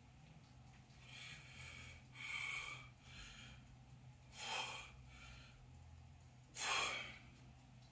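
A man breathing hard through a strain as he tries to bend a Grade 8 bolt by hand: about five short, forceful breaths, the loudest near the end.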